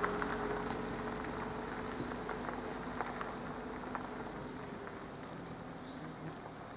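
An SUV driving over a level crossing and away. Its engine and tyre noise fade steadily, with a few sharp knocks as the wheels cross the rails.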